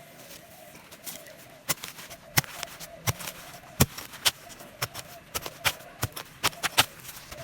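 A hand digging tool striking into the ground to dig up cat's ear plants by the root: a run of sharp, irregular knocks starting about a second in.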